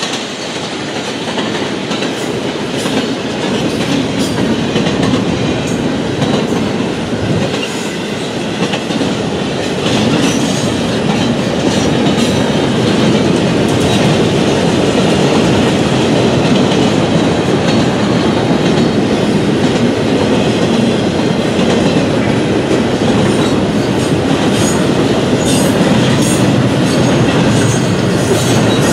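Double-stack container train's loaded well cars rolling steadily past, a continuous rumble and rattle with scattered wheel clicks over the rail. It grows louder over the first few seconds, then holds steady.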